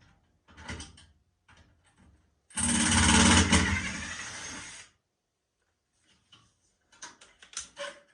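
Cordless drill running for about two seconds, loudest as it starts and easing off before it stops, with light clatter of tool handling before and after.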